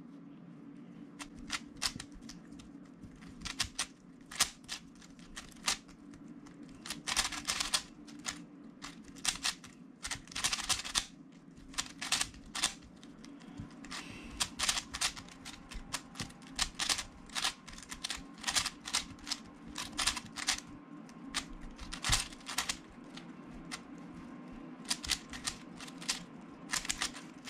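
A 3x3 Rubik's cube being turned fast by hand while it is solved: quick irregular runs of plastic clicks and clacks as the layers snap round, broken by short pauses.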